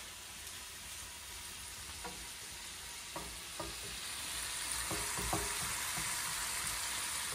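Fried rice with sausage sizzling in a pan while it is stirred, the sizzle growing louder about four seconds in.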